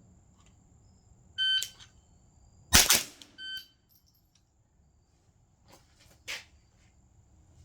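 An electronic shot timer beeps to start, about a second later a rifle fires a fast pair of shots, and the timer beeps again at the 2-second par. A short scuffing noise follows later.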